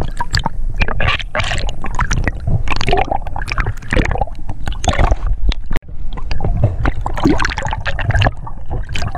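Underwater water noise picked up by a diver's camera: gurgling and sloshing of moving water with a low rumble and many irregular sharp clicks, cutting out for an instant about six seconds in.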